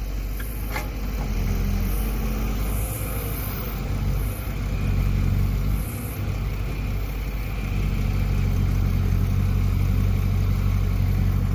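Excavator engine running steadily with a low drone, swelling slightly louder in the second half.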